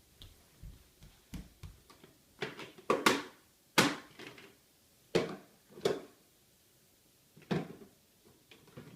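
About six sharp knocks and clatters of hard objects being handled and set down, spread over several seconds with quiet gaps between.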